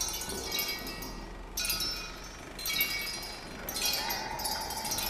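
High, glassy chiming tones, a fresh tinkling cluster struck about once a second and ringing on as it fades.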